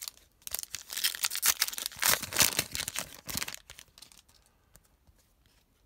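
A trading card pack's shiny wrapper being torn open and crinkled by hand, a dense crackling rustle for about three seconds that dies away about four seconds in.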